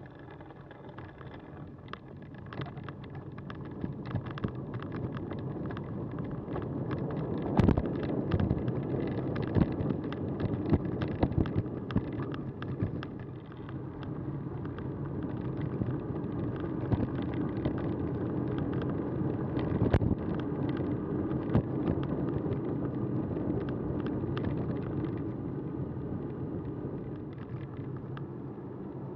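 Cannondale bicycle rolling along a path: steady tyre and wind rumble, sprinkled with frequent sharp clicks and rattles from bumps. The noise builds over the first few seconds as the bike picks up speed.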